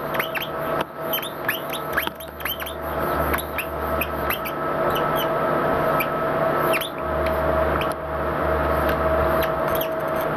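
Marker tip squeaking on paper as handstyle letters are written: many short squeaks that bend in pitch, several a second, over a steady hum.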